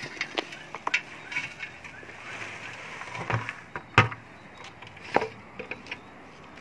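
Loose granular potting medium poured from a plastic bucket into a ceramic pot, a gritty rattling pour with small clicks. A sharp knock comes about four seconds in, with a lighter one about a second later.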